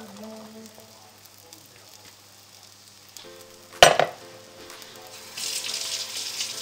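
Egg-soaked bread slices sizzling as they fry in butter in a pan. Almost four seconds in, a single sharp clatter as the ceramic mixing bowl is set down on a plate, and the sizzle grows louder near the end.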